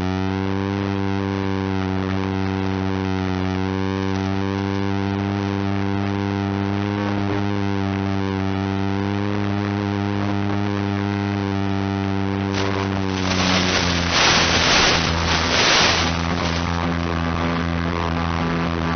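Steady buzzing hum on the audio of an analog FPV video link. From about two-thirds of the way in it is broken by a few seconds of hissing static, the sign of the radio signal breaking up.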